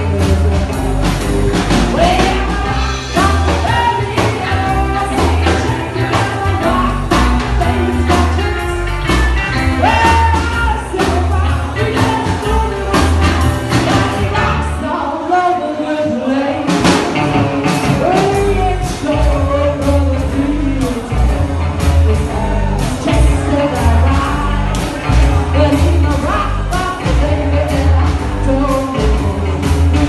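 Live rock and roll band playing: a woman singing over drums, double bass and guitar with a steady driving beat. About halfway through, the bass and low end drop out for a couple of seconds before the full band comes back in.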